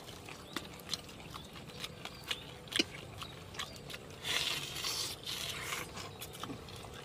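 People eating grilled softshell turtle: chewing, and small clicks and scrapes as the meat and shell are pulled apart, with a stretch of breathy hissing about four seconds in.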